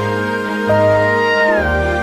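Background music: slow, soft instrumental music with held notes over a bass that moves in steps, changing chord about one and a half seconds in.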